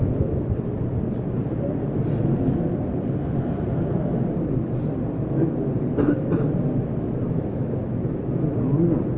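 Steady low rumble of a crowded hall with indistinct murmuring voices, and a faint click or two about six seconds in.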